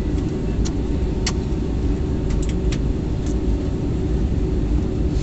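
Airbus A321neo airliner noise heard inside the cabin on the ground after landing: a steady low rumble with a constant hum, and a few faint clicks.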